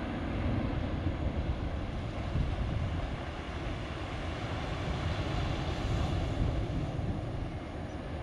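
High Pacific surf raised by a typhoon: waves breaking in a continuous low rush, with no single crash standing out.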